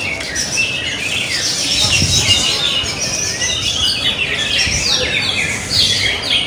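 Several caged greater green leafbirds (cucak ijo) singing at once in a songbird contest, a dense, unbroken tangle of rapid overlapping chirps and whistles that sweep up and down.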